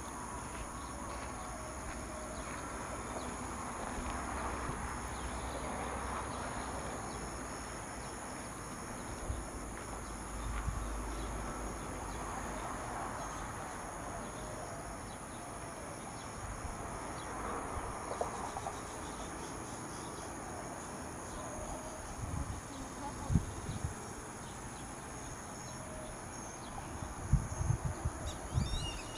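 Steady high-pitched insect chorus, with a few dull low thumps in the second half and a brief bird chirp at the very end.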